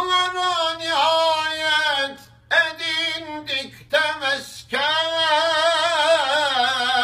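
A man's solo unaccompanied voice singing a Turkish Islamic kaside in long melismatic phrases with a wavering, ornamented line, pausing briefly twice for breath.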